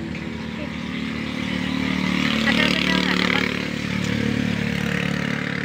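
Road traffic: a motor vehicle's engine running steadily, with a passing vehicle swelling loudest about halfway through and then fading.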